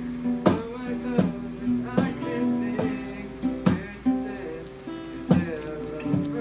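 Acoustic guitar playing chords and held notes, with a sharp percussive hit roughly every second from a cajón keeping the beat.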